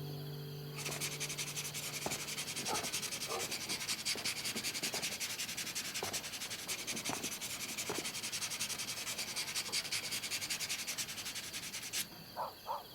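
Fast, steady rasping of many fine strokes, like sanding by hand, with a few faint light knocks, running until it stops abruptly about a second before the end. A music ending fades out in the first two seconds.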